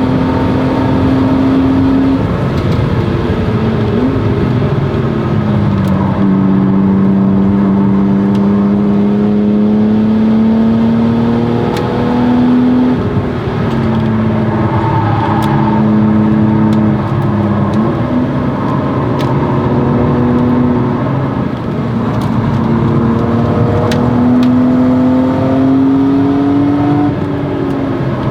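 1997 BMW E36 M3's 3.2-litre straight-six through a Stromung cat-back exhaust, driven hard on track: the engine note climbs steadily through long pulls and drops abruptly at gear changes and lifts, several times over.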